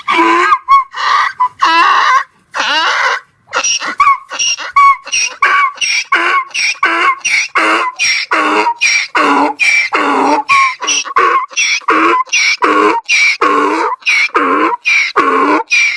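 Rhythmic guttural grunting and panting vocalisations of a Sufi dhikr (zikir) chant, loud, about two to three a second, alternating higher and lower grunts.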